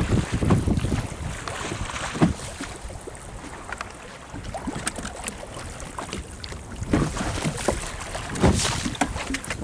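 Wind buffeting the microphone and sea water lapping against a small fishing boat's hull, with scattered knocks and clicks as a handline is worked over the side; the loudest knocks come about two seconds in and again near the end.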